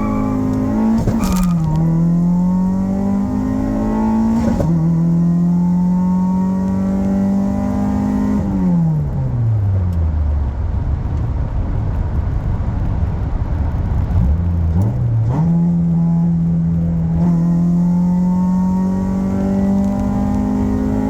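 Honda F23A four-cylinder engine under way in a moving car. Its pitch drops suddenly about a second and a half in, climbs slowly, then falls away to a low rumble while the car slows, and rises again after about fifteen seconds. Two sharp clicks come early on.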